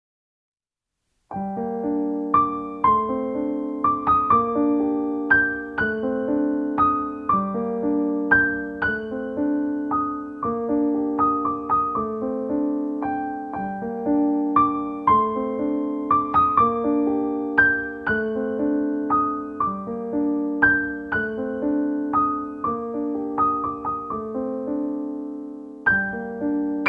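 Background piano music: a repeating pattern of single notes over held lower chords. It begins about a second in, after a moment of silence, and pauses briefly near the end.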